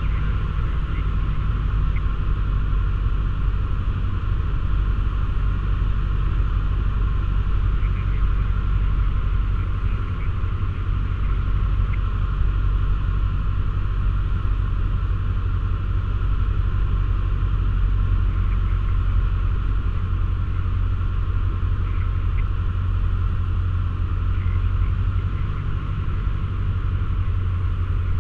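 Cessna 152's four-cylinder Lycoming engine and propeller droning steadily, heard from inside the cockpit on approach to land.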